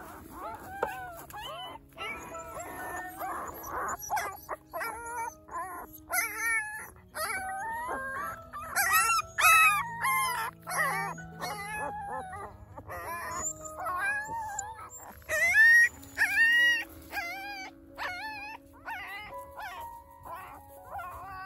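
Newborn puppies whining and squealing: many short, high cries that rise and fall in pitch, coming thick and fast and loudest around the middle, over soft background music with held notes.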